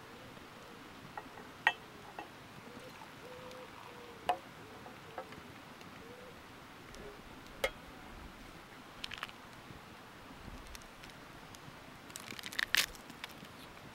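Camp cookware being handled: a few sharp clinks and knocks of an aluminium mess tin and its folding wire handle against a gas canister stove and an enamel mug, spaced a couple of seconds apart, with a quick run of clicks near the end.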